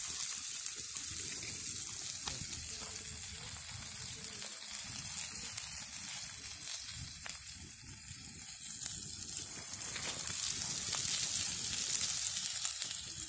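Sliced shallots and onions sizzling as they fry in an iron kadai, a steady hiss with a few light clicks from a steel ladle stirring them; the sizzle grows a little louder near the end.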